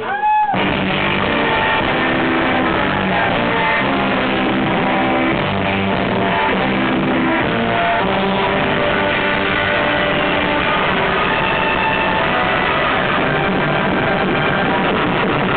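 Surf rock played live at full volume: a Fender Stratocaster electric guitar with the band behind it, playing a steady stream of fast notes.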